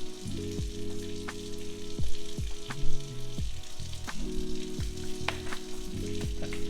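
Hands mixing dry flour, salt and baking powder in a bowl: a steady gritty rustle with scattered light taps, over background music.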